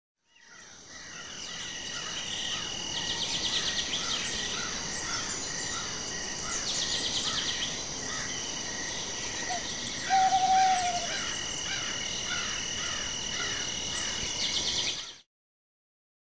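Night ambience of crickets and other insects: steady high trills and rows of repeating chirps that fade in at the start and cut off abruptly about a second before the end. A single short animal call stands out about ten seconds in, the loudest moment.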